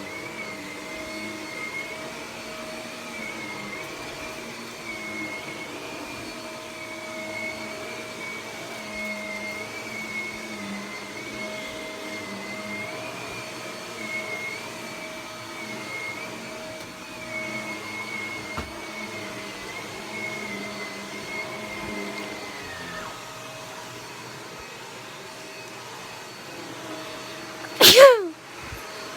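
Vacuum cleaner running steadily, a fairly quiet machine, with a wavering high whine that drops out about three-quarters of the way through. Near the end comes one short, loud sound that falls sharply in pitch.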